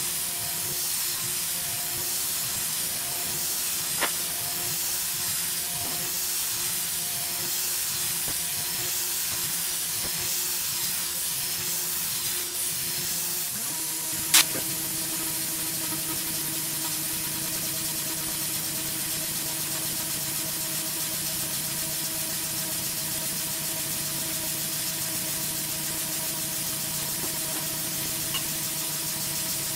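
Tormach 440 CNC mill spindle running a 3/8" carbide ball end mill at about 10,000 RPM on finishing passes in aluminum, a steady machine hum under the constant hiss of the coolant nozzle aimed at the cutter. A sharp click comes about 4 s in and a louder one about 14 s in, after which the hum settles at a different pitch.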